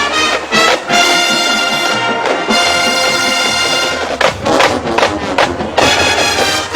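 Marching band brass playing loud sustained chords, then a string of short accented hits with percussion, as a number nears its end.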